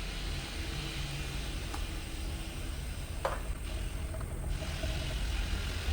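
Tiger GDG35 3 hp oil-free air compressor running steadily with its intake air filters not yet fitted, a low hum under an even hiss. Two short clicks come about two and three seconds in.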